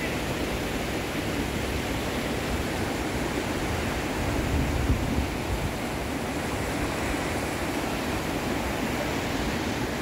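Eagle Falls' lower waterfall rushing, a steady dense roar of falling water, with a brief swell of low rumble about five seconds in.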